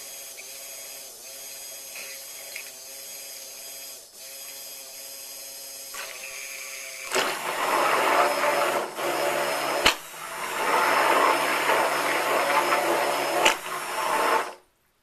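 Stick blender mixing soap batter, bringing the oils and lye to trace. The motor hums steadily, turns much louder and noisier about seven seconds in, then cuts off suddenly just before the end.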